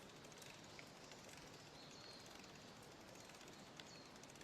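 Near silence: faint outdoor background hiss with a few faint ticks and a faint high chirp about two seconds in.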